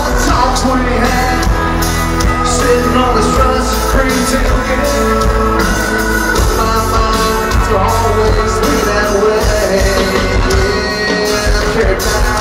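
Live country-rock band playing loudly: drums, bass, guitars and keyboard, with a man singing lead into the microphone.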